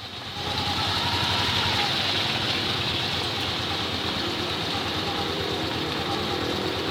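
An engine running steadily at idle, with a constant hiss over it.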